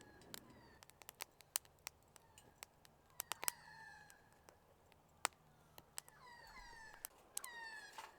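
Irregular sharp ticks of raindrops dripping onto a tarp, with several short downward-gliding calls from an animal, two of them close together near the end.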